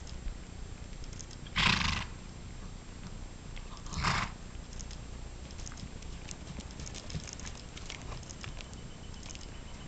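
Curly horse snorting twice under saddle: two short breathy blasts about two and a half seconds apart, over faint hoofbeats on sand.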